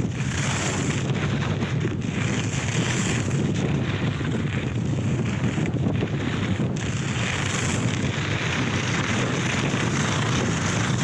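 Wind buffeting a helmet-mounted action camera's microphone during a fast ski run. Over it come recurring bursts of hiss about every two seconds, as the edges of Head i.Race Pro race skis carve through the snow turn after turn.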